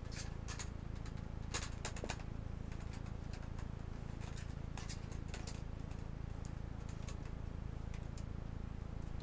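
Plastic bezel tabs on a Chromebook's display assembly clicking and snapping as they are pried loose by hand: a scatter of sharp clicks, the loudest cluster about one and a half to two seconds in, over a steady low hum.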